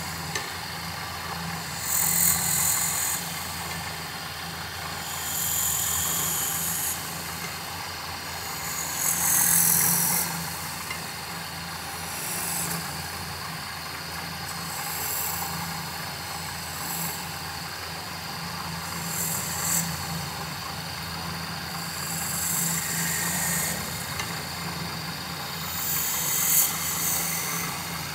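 Wood lathe motor running with a steady hum while a chisel cuts the spinning wood in short passes, each pass a brief high hiss, about nine times.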